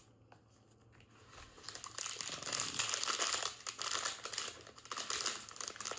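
Crinkly plastic packaging being handled and crumpled, quiet at first and turning into dense, continuous crackling from about two seconds in.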